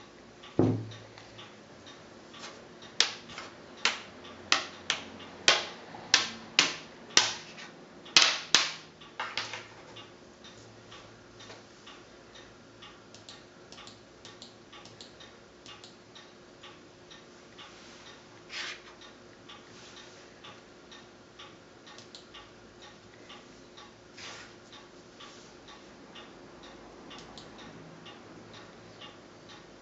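Soft, regular ticking runs throughout. About three seconds in, a run of a dozen or so much louder sharp clicks starts, roughly two a second, and stops by about the tenth second. There is a dull low thump just after the start, and a few single clicks come later.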